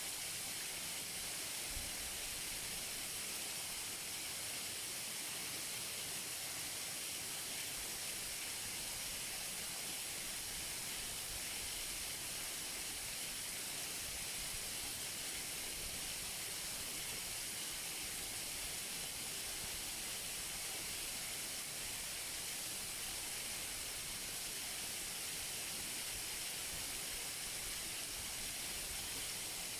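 Waterfall rushing steadily: an even, unbroken hiss of falling water, brightest in its upper range.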